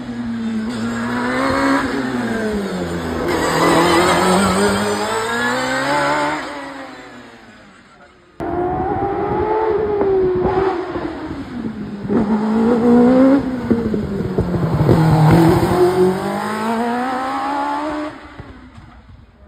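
Hillclimb racing car engines at high revs, their pitch repeatedly falling and rising through the bends. The sound fades about eight seconds in, then cuts abruptly to a second car's run.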